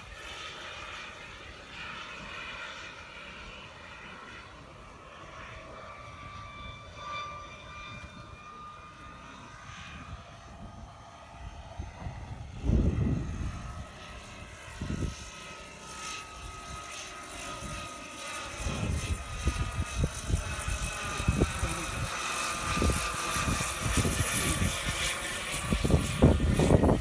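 Turbine engine and rotor of a radio-controlled jet helicopter, a scale Airbus EC-135, in flight: a steady high whine that slides slightly in pitch, growing louder over the last several seconds as the helicopter comes closer.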